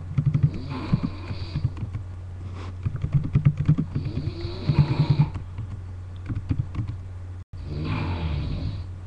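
A person snoring heavily: three long snores, each a couple of seconds, about three seconds apart, over a steady low hum.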